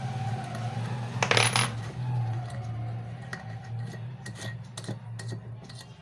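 Small metal parts clinking and scraping as the bolt, washer and nuts of a homemade bearing puller are worked into the bearing seat of a ceiling fan's metal cover. There is one louder metallic rattle about a second in, then light scattered ticks, over a steady low hum.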